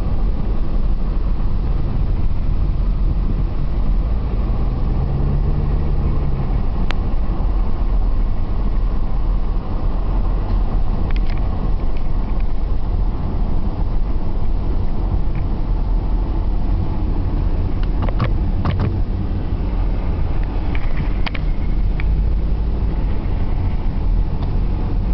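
Car engine and tyre and road noise heard from inside the cabin of a passenger car being driven around a race track, a steady heavy drone. Around 5 s the engine note is briefly heard more clearly, and a few short clicks or knocks come near 18 s.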